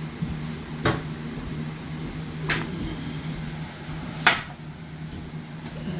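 Three sharp knocks and clicks of tools and parts being picked up and set down, the last one the loudest, over a steady low hum.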